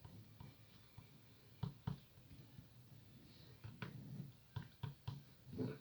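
Faint pen-on-paper writing: scattered light taps and short scratches of the pen as letters are formed, with quiet gaps between strokes.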